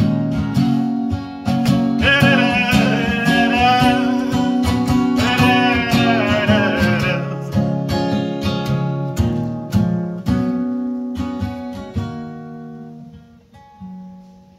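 Acoustic guitar strummed in a steady rhythm, with a wordless, wavering sung line over it from about two to seven seconds in. The strumming thins out and grows quieter near the end.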